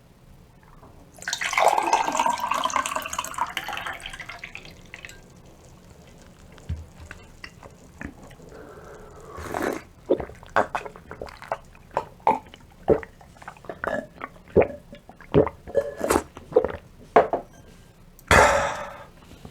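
Close-miked wet eating sounds: a loud liquid slurp for a couple of seconds, then a run of short wet mouth clicks about twice a second, and another brief slurp near the end.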